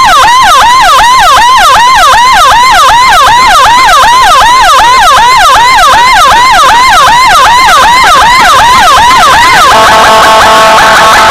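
Emergency siren on a fast yelp, its pitch rising and falling about three times a second. Near the end it switches to a steady, multi-note horn-like tone.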